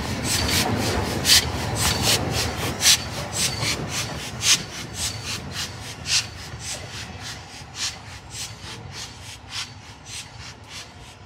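LMS Royal Scot class steam locomotive 46115 Scots Guardsman, a three-cylinder 4-6-0, moving slowly away with a regular chuff from its exhaust, about three beats a second with every few louder, over a low rumble. The sound fades steadily as the engine draws off.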